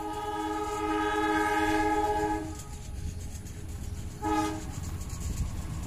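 Diesel locomotive of an approaching passenger train sounding its horn: one long blast of about two and a half seconds, then a short blast about four seconds in, over a low steady rumble.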